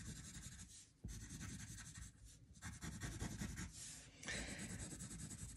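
Faint scratching of a wooden pencil sketching on paper, in several runs of short strokes with brief pauses between them, as palm fronds are drawn.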